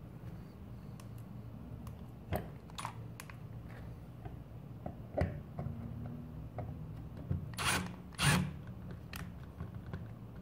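Power drill running slowly, boring a hole into the top cover of an e-bike battery, with scattered clicks and two louder bursts about three-quarters of the way through.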